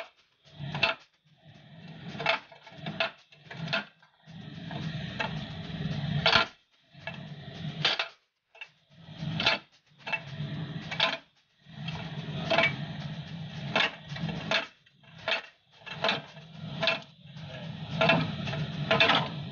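A steel pry bar clanks against the pin bore and bracket of a hydraulic breaker as it is levered back and forth to free the mounting pin. The sharp metallic knocks come irregularly, about one a second, over a low steady hum.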